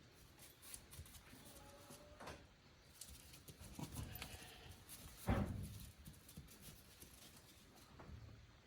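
A goat bleating briefly a little past the middle, with a few fainter, shorter goat sounds before it.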